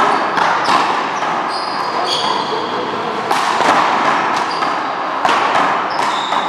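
One-wall paddleball rally: a small rubber ball smacking off paddles, gloved hands and the wall in quick, irregular hits, with shoes squeaking on the court between hits.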